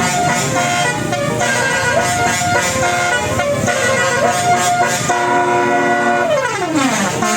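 Bus telolet horn (Basuri multi-tone horn) playing a tune of stepping notes, then holding a chord that slides down in pitch just before the end.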